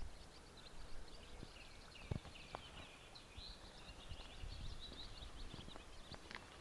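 A small songbird singing a fast, unbroken run of high twittering notes for about five seconds, with a few faint footsteps on a path.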